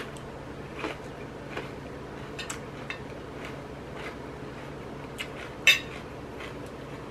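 Metal chopsticks clicking and scraping against a plate while noodles are picked up and eaten: a scatter of short, light clinks, with one sharper clink a little before the end, over a faint steady low hum.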